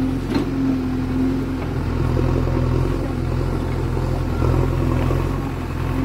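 JCB 3DX backhoe loader's diesel engine running steadily, with a few faint knocks.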